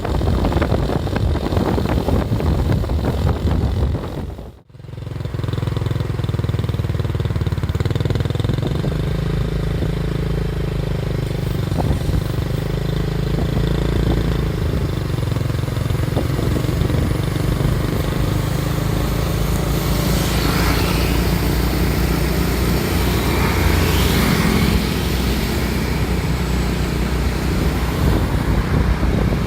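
Vehicle engine running steadily on the road with road and wind noise; the sound drops out sharply about four and a half seconds in, then the low engine drone carries on.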